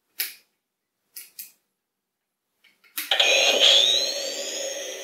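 Three clicks of the buttons on a Hasbro Ghostbusters Spengler's Neutrona Wand replica. About three seconds in, its speaker sets off a loud electronic blast effect, a noisy rush with a rising whine that slowly fades.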